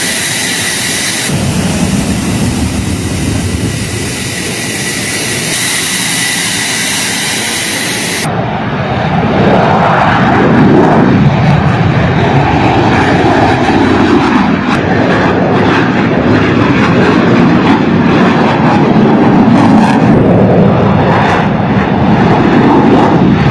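Military jet engines. First a steady high-pitched whine from a running jet, then, after an abrupt cut about eight seconds in, the louder rush of jets flying past, with slowly sweeping tones.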